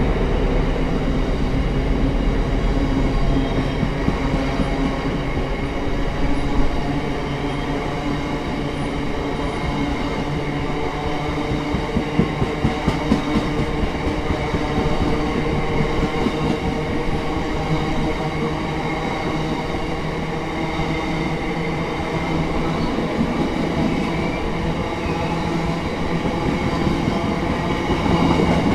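Diesel-hauled freight train passing: a steady engine drone over rolling wheel-and-rail noise, with a run of clickety-clack from the wagon wheels crossing rail joints about halfway through.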